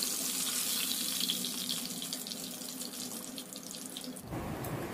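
Breaded chicken drumsticks sizzling in hot oil in a wok: a steady high hiss with fine crackling. A little over four seconds in, the sizzle cuts off and a duller, lower noise takes over.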